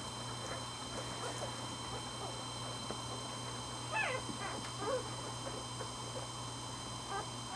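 Day-old Pembroke Welsh Corgi puppies squeaking and whimpering, with a louder high cry that falls in pitch about four seconds in and another just before five seconds.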